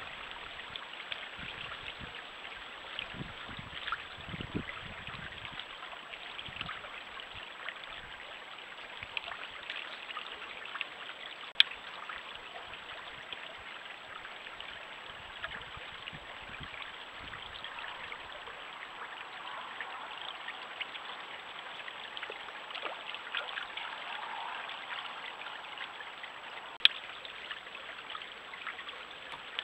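Stream water running and trickling steadily over stones. Two sharp clicks cut through, about twelve seconds in and near the end.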